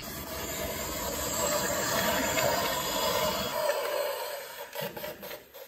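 Plastic toy truck pushed along a tabletop, its wheels rolling with a steady whir that dies away near the end.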